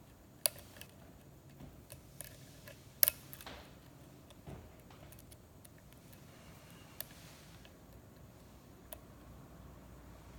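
Sparse small metallic clicks and ticks of lock picks working the pins of a six-pin pin-tumbler lock cylinder, with two sharper clicks about half a second and three seconds in.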